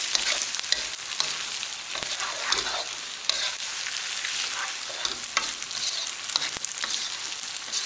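Flat rice noodles and bean sprouts sizzling in a hot non-stick wok while a plastic spatula scrapes and turns them, with frequent irregular scrapes and taps over a steady hiss.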